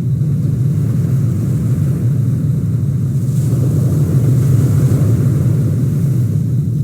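Car driving on the road, with steady low engine and road rumble. Around the middle a hiss swells and fades, as of a passing vehicle or a change in road surface.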